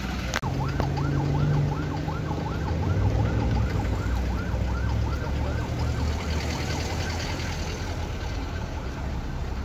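Emergency vehicle siren in a fast yelp, its pitch sweeping up and down several times a second and fading out in the second half. A low engine rumble runs underneath.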